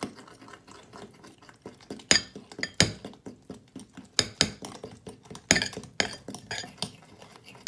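Two metal forks stirring pancake batter in a bowl, clinking against the bowl's sides in irregular knocks, with a few sharp, louder clinks from about two seconds in.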